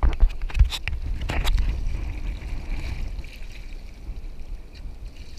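Wind buffeting the microphone over choppy, sloshing water, with a cluster of sharp splashes and knocks in the first second and a half as a kitesurfer in the water gets his feet into the board.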